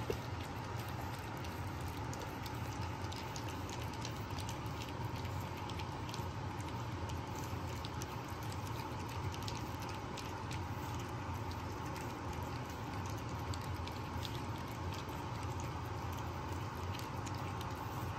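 French bulldog puppies lapping and smacking wet puppy mush from a plastic tray: a continuous run of small, irregular wet clicks, over a steady low hum.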